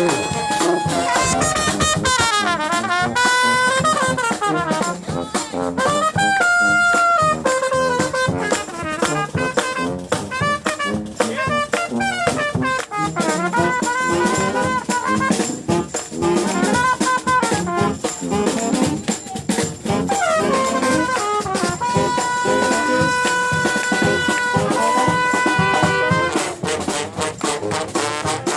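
A live brass band playing an upbeat tune, with trumpets, trombones and saxophone over drums. The horns hold long chords for a few seconds near the end.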